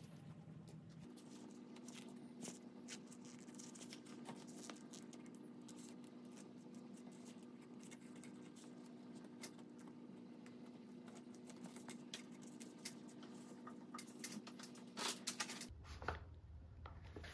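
Faint scratching and light ticking of a thin wooden stick scraping dust out of the gap around a metal ceiling spotlight trim, with a few louder clicks near the end, over a faint steady hum.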